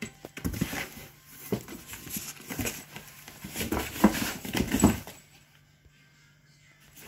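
A cat scuffling inside a cardboard box, with irregular knocks and scrapes against the cardboard that stop about five seconds in.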